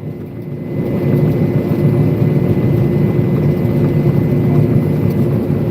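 Steady running drone of a vehicle: a low rumble with a constant hum over it, growing a little louder about a second in.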